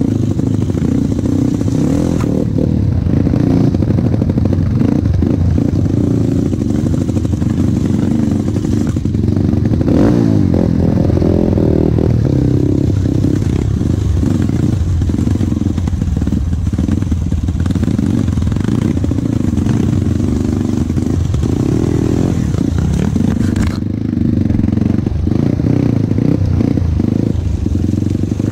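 Off-road motorcycle engine running under load at low trail speed, the revs rising and falling, with brush scraping and clattering against the bike.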